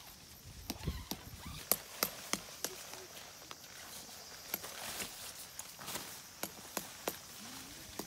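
Irregular sharp knocks and clicks, several a second, from hands-on tent-pitching work, over a steady high hiss.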